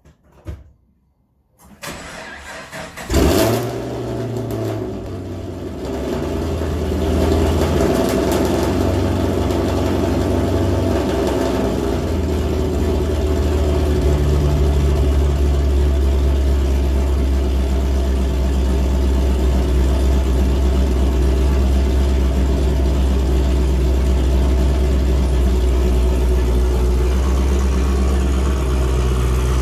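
Pontiac G8's supercharged LSA V8, built to 408 cubic inches, cold-started: a brief crank about two seconds in, catching with a loud flare just past three seconds, then settling into a steady idle that rises slightly around six seconds and holds.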